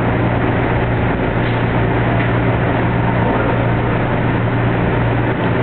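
Light rail train running along the track, heard from inside at the front of the car: a steady low hum over a constant wash of running noise.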